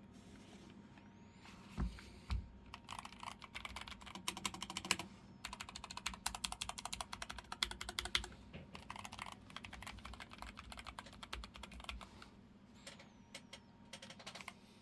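Typing on a Keychron K3 version 3 low-profile mechanical keyboard: rapid key clicks in runs of a few seconds with short pauses between them, after two louder knocks about two seconds in.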